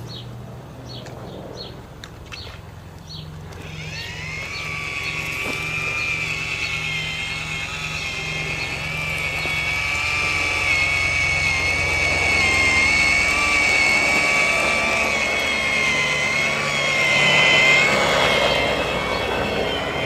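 Chainsaw engine running, first at a low, evenly pulsing idle, then revved up about four seconds in and held at high speed with a wavering whine, growing louder toward the end.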